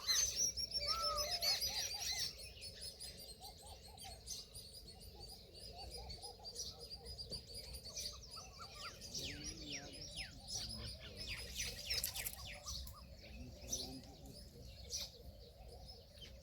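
Several small birds chirping and twittering together: quick high chirps and short falling whistles, busiest and loudest in the first two seconds.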